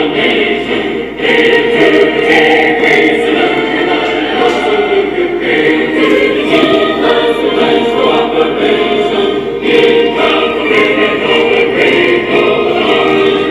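A choir singing music with long held notes.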